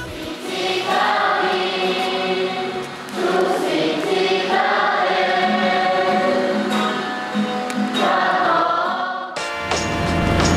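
Many voices singing a song together as a group. The singing stops abruptly about nine seconds in, and a low vehicle rumble takes over for the last second.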